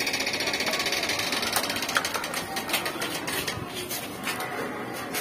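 Cooking oil sizzling in a hot wok over a wood fire: a fast, dense crackle for the first couple of seconds that thins out to scattered pops and ticks.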